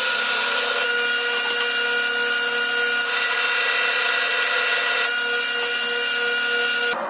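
A power tool running steadily, a high whine with a hiss over it, cut off abruptly near the end.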